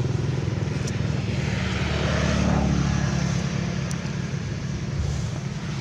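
Motor vehicle engine running by on a road, with a steady low hum that swells as it passes about two to three seconds in.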